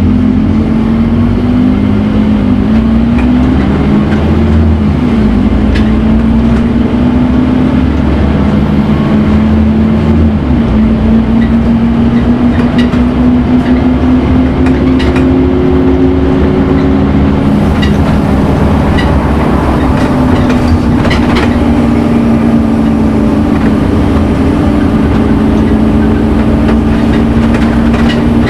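A Scania N230UD Omnicity bus heard from on board, its diesel engine pulling under way with a loud drone and a whining note that dips and then rises and holds in pitch. Scattered rattles and ticks come from the bus body.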